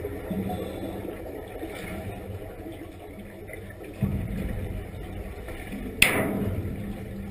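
Divers' exhaled air bubbling underwater, heard muffled through the water as low rumbling surges that start about every two to four seconds and fade. Near the end there is one sharp click.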